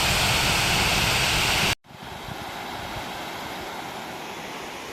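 Waterfall's water rushing, a steady hiss-like roar. It cuts off abruptly about two seconds in and comes back quieter and just as steady.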